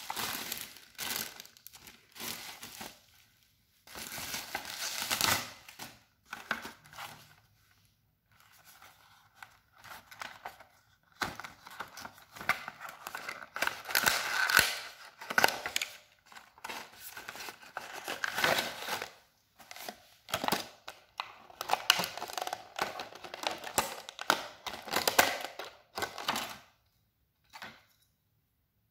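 Bubble-wrap packaging being crinkled and torn open, then a cardboard box being handled and opened, in irregular bursts of rustling and crackling. The handling stops about two seconds before the end, apart from one short rustle.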